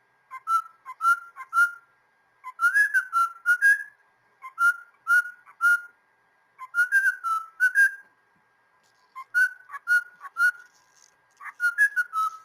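Squeaky kissing sounds: a sharp lip smack with a short whistled squeak, made three or four at a time in groups about every two seconds.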